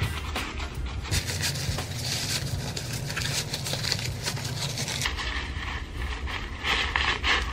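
Crinkly rustling of a thin ripstop-nylon Baggu standard reusable shopping bag being folded and stuffed back into its small pouch by hand.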